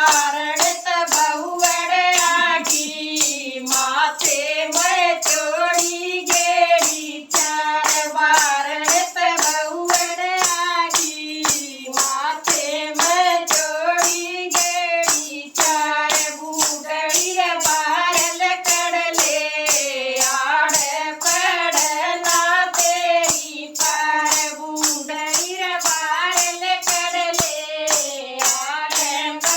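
A Haryanvi folk bhajan: a woman's voice singing a wavering melody over a fast, steady beat of jingling percussion.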